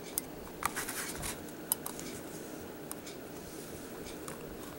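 Small push-button on/off switches on a breadboard clicking as they are pressed, several light clicks bunched about a second in and a few single ones later, over a faint steady background noise.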